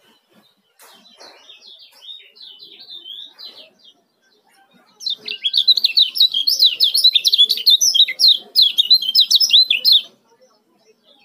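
Caged kecial kuning (Lombok yellow white-eye) singing its fast, tightly packed 'ciak' chatter. There are soft twitters for the first few seconds, then after a short pause a loud, rapid run of high chirps for about five seconds that stops near the end.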